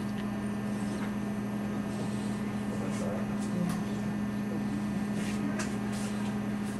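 Steady low electrical or mechanical hum, as from room equipment or ventilation, with a few faint soft clicks.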